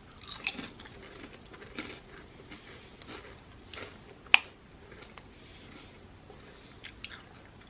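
Faint crunching of thin potato chips being bitten and chewed, with scattered small crackles and one sharp click about four seconds in.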